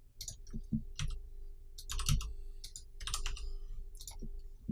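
Computer keyboard keystrokes and mouse clicks in short, scattered clusters as shortcut keys are pressed.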